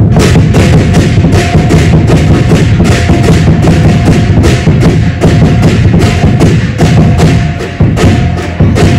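Lion dance percussion band playing: a big drum beating fast with cymbals clashing on the strikes, loud and continuous, with a short break just before the end.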